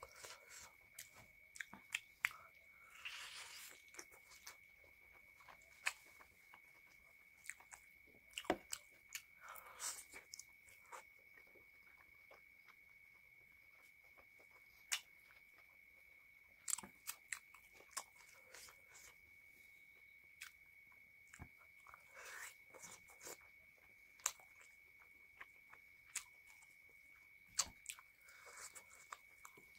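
Close-miked eating sounds of a person chewing chicken leg meat and rice eaten by hand: irregular sharp wet clicks and smacks, spaced a second or more apart, over a faint steady high tone.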